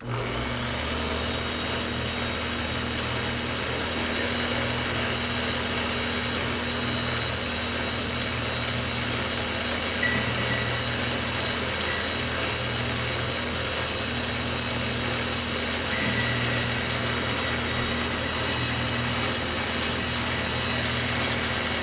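Metal lathe driven by a converted DC motor, switched on at the start and then running steadily with a low hum and whir, a faint short whine now and then. The owner finds the DC motor short of power.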